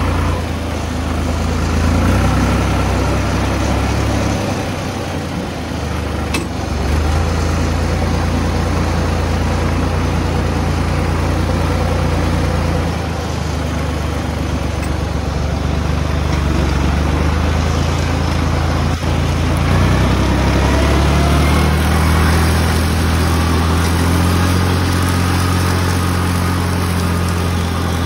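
Small tractor's engine running steadily under the load of mowing down strawberry plants, its pitch shifting slightly a few times.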